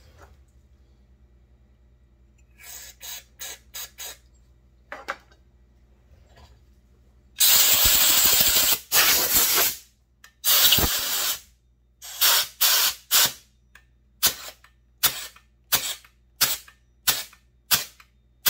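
Compressed-air blow gun blowing out the decompression valve passage of a McCulloch PM 700 chainsaw. A few brief puffs come first, then three long hissing blasts of a second or so each, then a run of short quick blasts, about one and a half a second.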